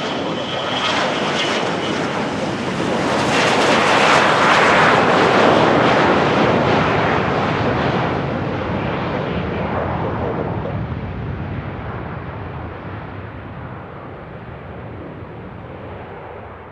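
Business jet's engines passing close by: a high whine at first, then the jet noise swells to its loudest about five seconds in and slowly fades away.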